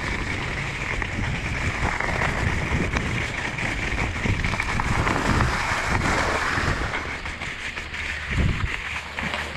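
Skis hissing and scraping over the snow while skiing downhill, with wind buffeting the camera's microphone; the noise eases off for a moment near the end as the skier slows.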